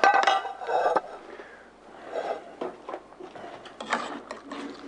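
A metal tray clanks down on the counter with a short ringing note, then the clinks and scrapes of a spoon being worked in a stainless steel cooking pot.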